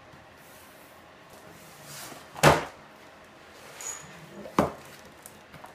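Cardboard toy box being handled: two sharp knocks about two seconds apart, the first one louder.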